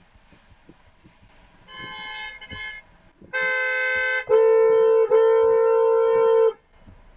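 Car horn honking: a shorter, quieter honk about two seconds in, then a loud one-second blast and a long held blast of about two seconds with a momentary break. It is sounded to hurry along a car sitting still at the light ahead.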